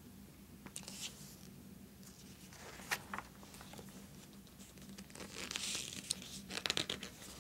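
Glossy magazine pages being handled and turned by hand: paper rustling and crinkling in short scattered bursts, with a sharp click about three seconds in and a longer rustle near the end as a page is turned.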